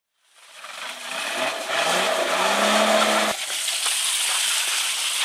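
Off-road 4x4 SUV engine revving hard, its wheels spinning in mud, the engine note rising. It cuts off abruptly about three seconds in, and a steady rushing noise follows.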